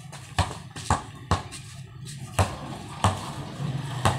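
Rubber basketball dribbled on a concrete court: about six sharp bounces at an uneven pace.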